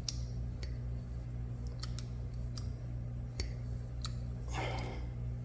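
Hydraulic hand crimper being pumped to close its die on a 2/0 copper lug, giving sharp, irregular clicks about every half second to a second. A steady low hum runs underneath, and there is a short breathy rush near the end.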